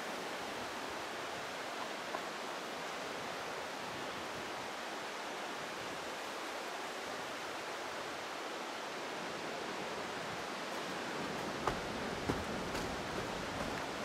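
Steady rush of flowing water, most likely a nearby waterfall. Two soft thumps sound near the end.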